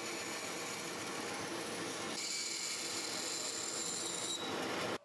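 Bandsaw cutting a thin cocobolo board, running steadily with a high whine over the cutting noise. The pitch of the high tones shifts about two seconds in, and the sound stops suddenly at the very end.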